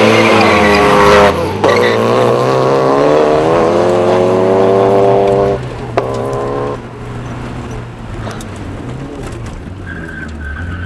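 Race cars launching hard off the start line with tyres squealing. Engine revs drop at a gear change about a second in, then climb steadily until about five and a half seconds, and the sound fades away after about seven seconds.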